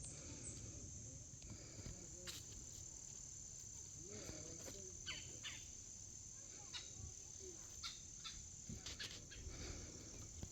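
Faint, steady, high-pitched insect chorus running without a break, with scattered soft clicks over it.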